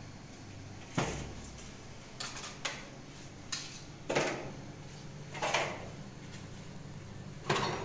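Dishes and kitchen utensils knocking and clattering: about seven separate sharp knocks, some ringing briefly, over a steady low hum.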